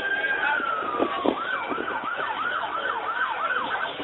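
Emergency vehicle siren: a long wail that rises slowly, falls away about a second in, then switches to a fast yelp of about three or four sweeps a second that stops just before the end.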